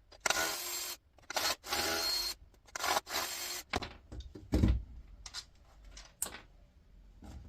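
Three screws being driven out of a plastic appliance housing, each a rasping burst lasting under a second. These are followed by a low thump and a few light clicks.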